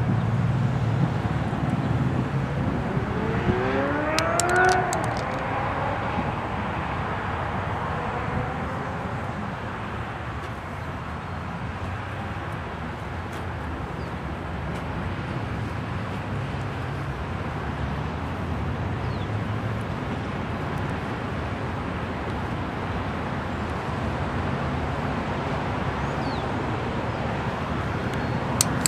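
Steady low rumble of an idling engine. A brief rising whine comes about four seconds in.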